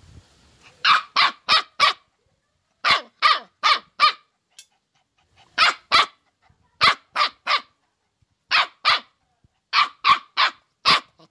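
A dog barking repeatedly in quick runs of two to four barks, with short pauses between the runs.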